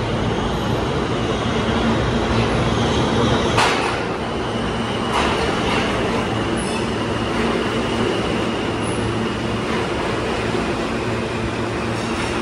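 New York City subway train running on the rails, a steady rumble with a sharp clank about three and a half seconds in and a thin high squeal from about five to nine seconds in.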